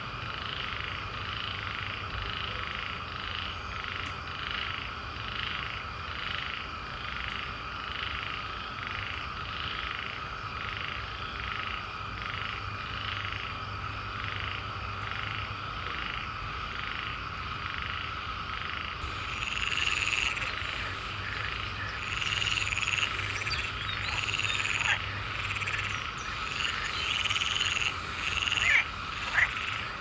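Chorus of swamp frogs calling: a steady trilling band under evenly repeated calls, with louder, higher-pitched calls joining about two-thirds of the way in and a few sharp, loud clicks near the end.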